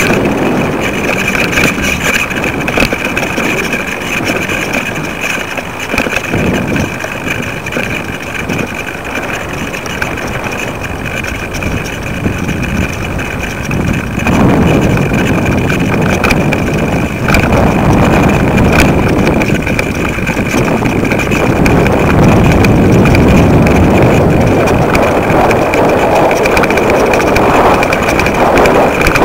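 Wind buffeting the microphone of a kite-lifted camera rig, a rumbling noise that grows louder about halfway through, with a steady high whine under it.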